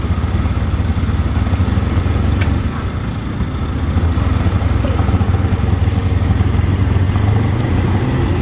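A small engine on a gigging boat running steadily: a low, even drone.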